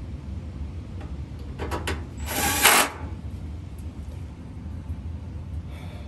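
Cordless drill-driver run in one short burst of under a second, about two seconds in, working a screw on the dryer's top panel, with a few short clicks just before it. A steady low hum runs underneath.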